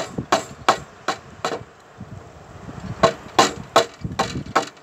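A wood chisel being struck in a steady run of blows, about two to three a second, chopping into a wooden beam to cut a joint. The blows stop for about a second and a half midway, then resume.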